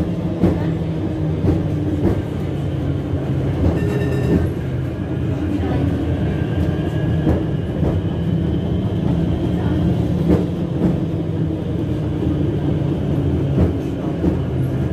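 Vintage street tram running along its track, heard from on board: a steady motor hum with scattered clicks and rattles of the wheels over the rails.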